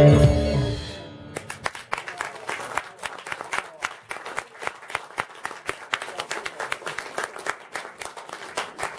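A live rock band's closing chord rings and fades out about a second in, then an audience applauds, the individual hand claps distinct.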